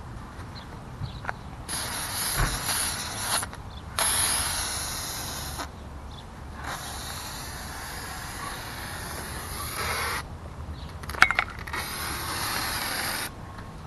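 Aerosol can of silly string spraying in four hissing bursts, each one to three and a half seconds long. A couple of sharp clicks come about eleven seconds in.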